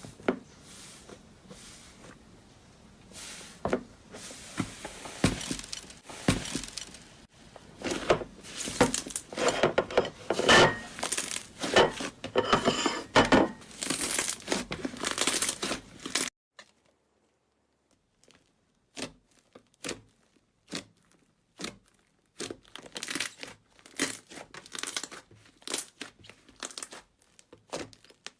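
Slime being squeezed and pressed by hand, making a dense run of crackling clicks and pops. The crackling cuts off suddenly about sixteen seconds in, and sparser single clicks and pops follow.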